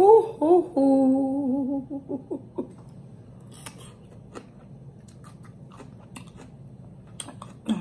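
A woman's drawn-out sound of delight with a wavering pitch, held for about two seconds. This is followed by soft wet mouth clicks and smacks as she licks sauce off her fingers and eats.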